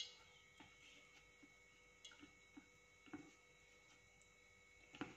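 Near silence: room tone with a few faint, scattered ticks and clicks.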